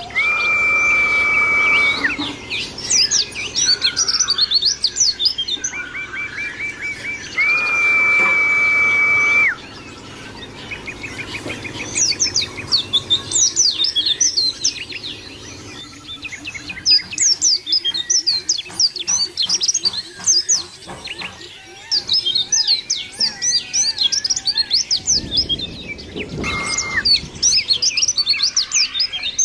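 White-eye (pleci) singing a fast, high, chattering twitter of short notes. It is broken by two long, level whistles of about two seconds each in the first ten seconds, and a quick trill just after.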